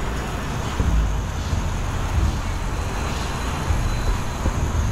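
Two-post vehicle lift lowering a truck after its safety locks are released: a steady rushing hiss with a low rumble beneath it.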